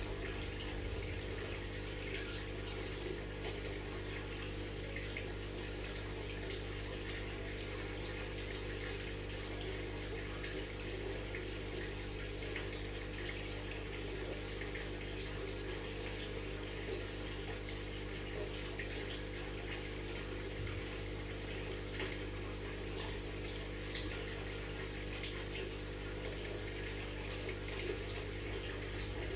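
Aquarium water circulating, a steady splashing and bubbling with a constant low hum from the filter or pump motor.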